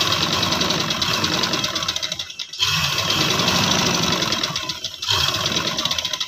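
Electric-motor-driven domestic sewing machine stitching a seam in rapid runs of needle strokes. It goes in three runs, with brief stops a little past two seconds in and again about five seconds in.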